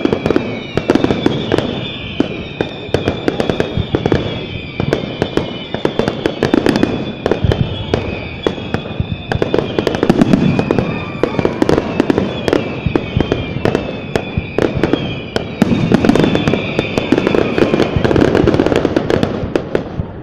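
Fireworks display going off: dense rapid crackling and popping mixed with repeated deep booms from shell bursts, with a high wavering tone running underneath.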